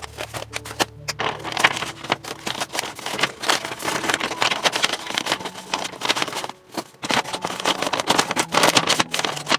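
Paper crinkling and rustling close to the microphone, a dense run of crackles and sharp clicks as a paper craft is handled, with a short pause about two-thirds of the way through.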